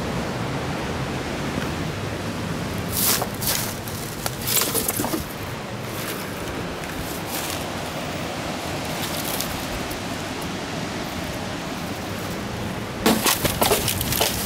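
Steady hiss of sea surf and wind on a rocky shore, with a few brief sharp noises about three to five seconds in and a quick cluster of them near the end.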